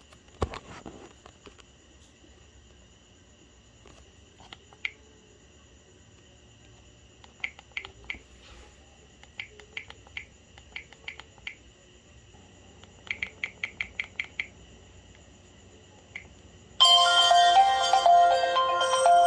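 LG Classic Flip flip phone: faint clicks, singly and in quick runs of several, as its keys are pressed to move through the menu. About 17 seconds in, a ringtone melody starts playing loudly from the phone's speaker.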